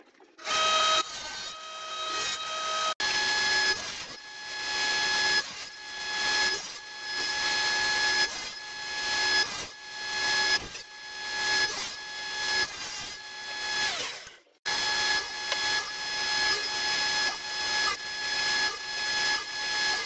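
Table saw with a dado stack running, a steady whine that swells in a regular pulse about once a second. Its pitch shifts about three seconds in, and it cuts out briefly about three-quarters of the way through.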